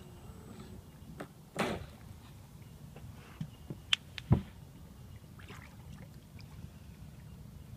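Small waves lapping against the water's edge right by the microphone: a splash about a second and a half in, then a few sharp slaps around four seconds in, the last the loudest.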